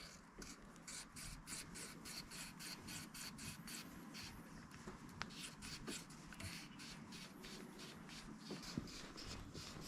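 Faint, quick rasping strokes, about four a second, of a bronze small-end bush being lapped by hand with abrasive. This eases a slight tight spot so the gudgeon pin will fit.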